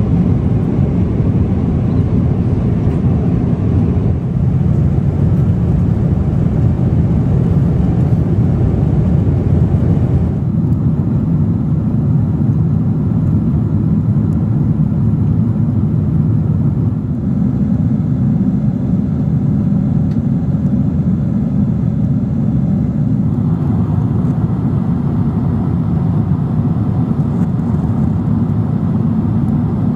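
Steady low cabin noise of a Boeing 777 airliner in flight: engines and rushing air heard from inside the passenger cabin. Its tone shifts slightly a few times.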